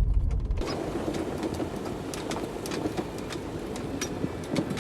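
Jeep Wrangler JK driving down a rough, icy dirt road: a steady crunch of tires with many small clicks and rattles. A deep engine rumble cuts off abruptly about half a second in.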